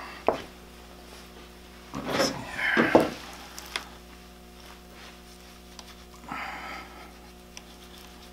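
A knife cutting and scraping connective tissue off a whitetail deer's lower leg bone: a few short scratchy scrapes and clicks, the loudest about two to three seconds in and another near six seconds, over a steady low hum.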